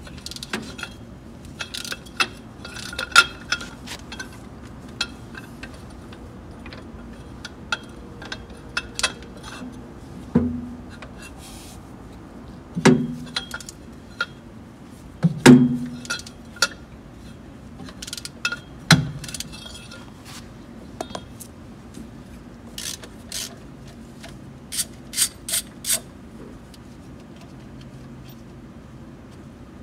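Steel hand tools clinking and knocking as a breaker bar with a socket on an extension is fitted to and worked on large steel bolts. Scattered sharp clinks, four heavier knocks through the middle, and a quick run of clicks near the end.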